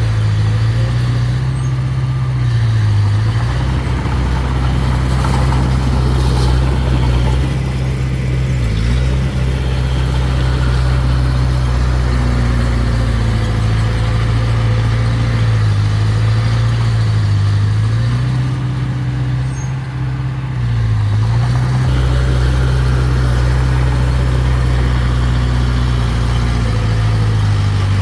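Diesel engine of heavy earthmoving equipment running steadily, its pitch dipping briefly about four times.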